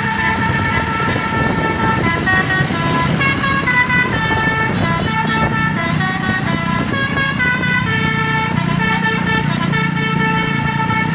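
Indonesian bus 'telolet' basuri horn, a multi-tone musical air horn, sounding held chords and, from about two seconds in to about eight, a quick stepping tune, over the steady low running of the bus engine.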